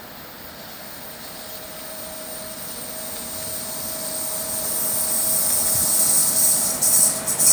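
Approaching freight train hauled by a Class 189 electric locomotive: a rushing noise builds steadily louder, with a faint steady whine coming in about two seconds in. It reaches a loud, fluttering rush near the end as the locomotive arrives.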